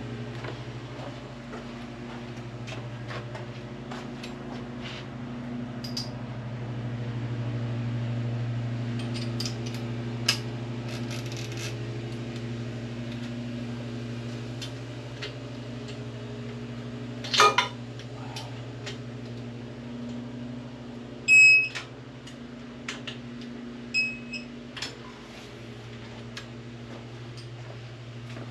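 Rocker plate bolts on a Harley-Davidson's rear cylinder being torqued down with a torque wrench and dogbone adapter: scattered metal clicks and clanks of the tools, with one loud clank a little past the middle. Several short, high electronic beeps come in the second half, over a steady low hum.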